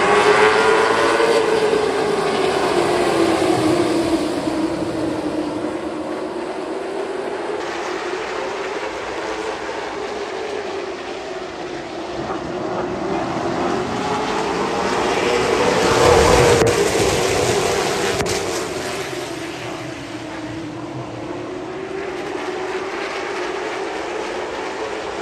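Late model stock car V8 engine at racing speed, its pitch swelling up and falling back in slow repeated cycles as the car accelerates and lifts around the short oval. It is loudest about sixteen seconds in.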